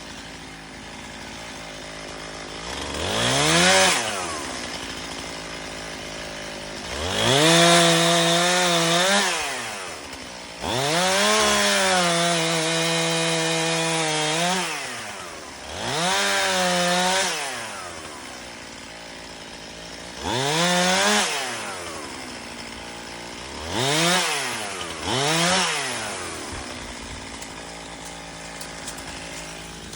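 Chainsaw throttled up and let back down about seven times, the motor's pitch climbing, holding for a second to several seconds while it cuts through wood, then falling away.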